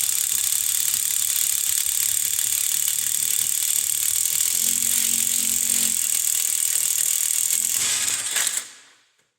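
Impact wrench hammering steadily as it drives a hole-cutting bit through 10 mm steel plate, then dying away and stopping near the end.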